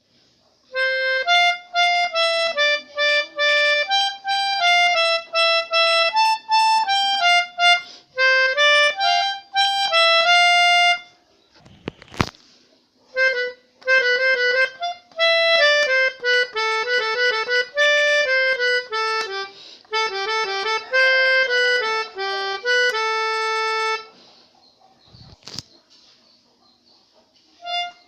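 A pianika (melodica) playing telolet-style melodies in held reed notes, two phrases with a pause after each. There is a sharp knock in each pause, about twelve and twenty-five seconds in.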